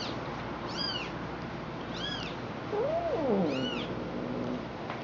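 A newborn kitten mewing, four short high-pitched cries about a second apart. About three seconds in comes one lower, longer cat meow that rises and then falls.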